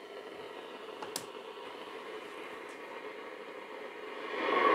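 Pye P114BQ valve radio's loudspeaker giving a steady hiss of static while the tuning dial is turned, with a sharp click about a second in. Near the end the hiss grows louder and a station starts to come through.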